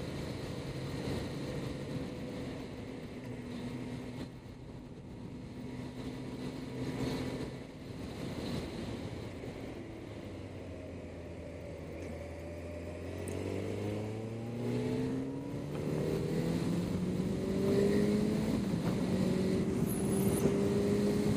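Yamaha FZ8 inline-four motorcycle engine, heard from the rider's seat. It holds a steady cruise at first, then from about halfway accelerates hard, its pitch rising in steps through the gears.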